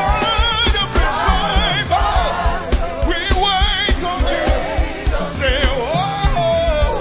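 Gospel worship music: a singer's wavering, melismatic vocal runs over a band with a steady kick-drum beat.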